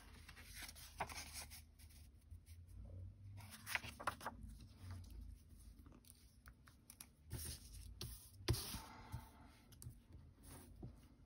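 Cardstock and patterned paper being handled and laid down on a cutting mat: soft, irregular rustles and light taps, with one sharper tap and a rustle of sliding paper about eight and a half seconds in.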